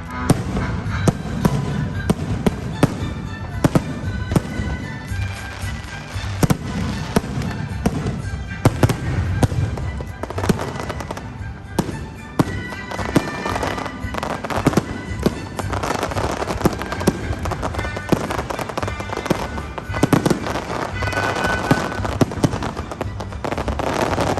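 Fireworks display: a dense, continuous run of sharp bangs and crackles, with music playing under it.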